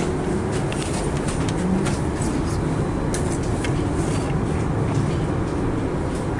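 Interior noise of a Hess Swisstrolley 3 trolleybus: a steady low hum and rumble, with a few light rattles and clicks.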